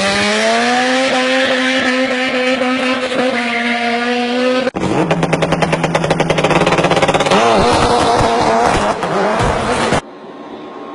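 Engine sound effects: a vehicle engine revs up and holds, cuts off abruptly a little under halfway through, and gives way to a second engine with a fast, even firing rhythm. Near the end it drops suddenly to a much quieter sound.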